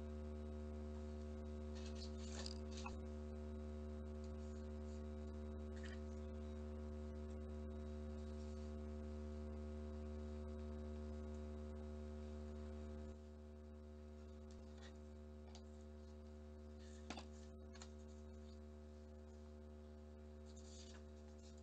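Steady low electrical hum with a few faint rustles and taps of paper being handled as a green paper strip is wrapped around a bamboo skewer. The hum drops a little in level somewhat past halfway.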